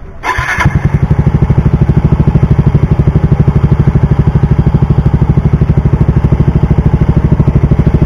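Yamaha Mio i125s scooter's 125 cc single-cylinder four-stroke engine, breathing through an aftermarket Apido V3 chicken-pipe exhaust, starting up and catching within the first second. It then idles with a steady, even, rapid putter from the pipe.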